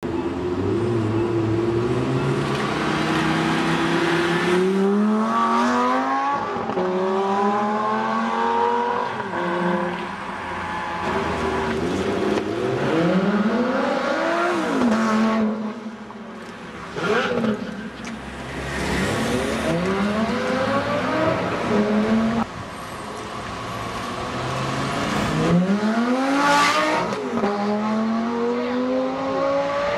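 Lamborghini Gallardo V10 engines accelerating hard, one run after another: each engine note climbs steeply, drops at a gear change and climbs again.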